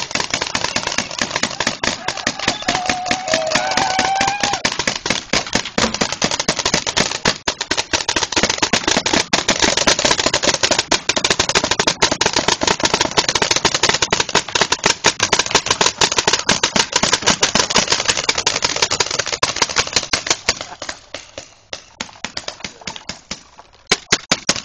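Many paintball markers firing at once, a dense crackle of rapid pops that thins to scattered shots in the last few seconds, with a few voices shouting near the start.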